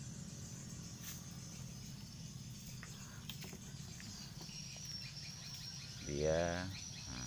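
Crickets chirring steadily and high over a low steady hum, with a few faint clicks. A short burst of a man's voice about six seconds in.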